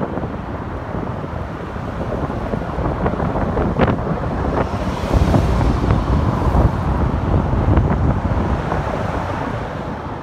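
Strong gusty wind buffeting the microphone, a loud low rumbling rush that swells about halfway through and eases toward the end.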